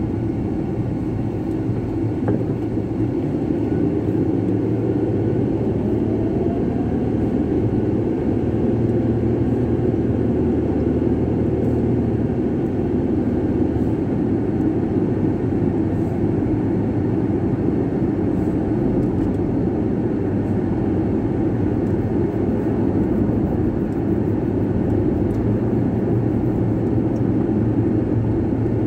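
Steady road and engine noise inside a moving pickup truck's cabin, with the engine note rising a few seconds in as the truck picks up speed.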